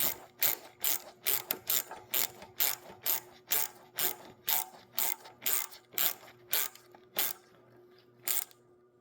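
Hand socket ratchet clicking in steady back-and-forth strokes, about two to three clicks a second, as the 8 mm bolt on a Kohler 18 hp engine's carburetor mount is run down tight. The clicking stops about seven seconds in, with one last click a second later.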